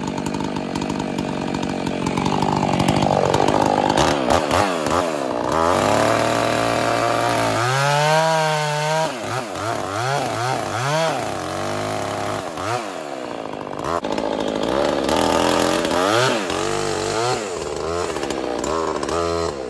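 Husqvarna Rancher 450 two-stroke chainsaw cutting through a small tree trunk near the ground. After a few steady seconds the engine pitch rises and falls over and over as the throttle is worked through the cut.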